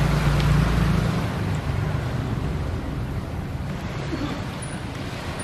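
Wind buffeting the microphone over the wash of small waves on the shore. The wind rumble is strongest in the first second.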